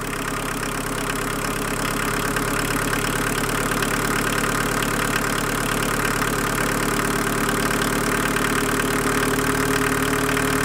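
Volkswagen 1.6-litre turbodiesel engine idling while the idle-speed screw on its fuel injection pump is turned up to raise the idle; the engine gets gradually louder over the first few seconds.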